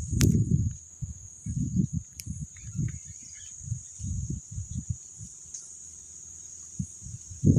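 Steady high-pitched drone of insects, over irregular low rumbles and thumps.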